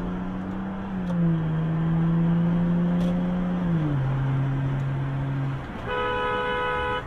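Car engine humming steadily, heard from inside the car, its pitch stepping down twice. About six seconds in, a car horn sounds for about a second.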